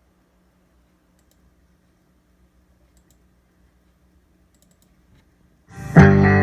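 A few faint clicks over a low hum, then a song with electric guitar and bass starts suddenly near the end, playing loudly through the Blackweb Gunner PC speakers and subwoofer.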